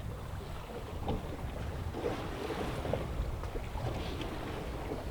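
Wind buffeting the microphone in a steady low rumble, with small slaps of water against the hull of a small boat lying at anchor.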